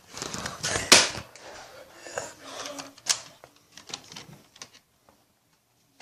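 Irregular clicks and knocks with short rushing bursts, the loudest about a second in, thinning out to scattered ticks near the end.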